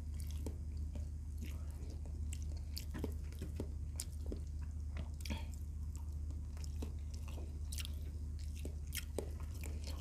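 Close-miked chewing and wet mouth smacks of a man eating fried tilapia and rice by hand, with many short sharp clicks scattered irregularly. A steady low hum runs underneath.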